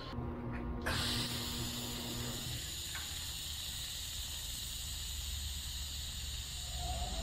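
TIG welding arc hissing steadily as a fitting is welded onto a metal fuel tank, starting about a second in.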